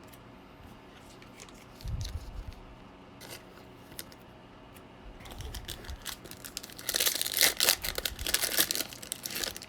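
Foil trading-card pack wrapper being torn open and crinkled, a dense crackling that is loudest over the last few seconds, after a couple of dull handling bumps.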